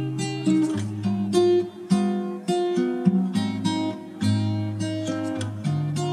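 Background music on acoustic guitar: plucked notes in an even, light rhythm.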